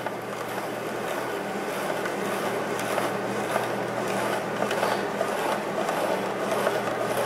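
Hand-cranked plastic spiral vegetable slicer cutting a zucchini into spaghetti strands: a continuous crisp crunching and rasping as the crank is turned slowly, growing a little louder over the first couple of seconds.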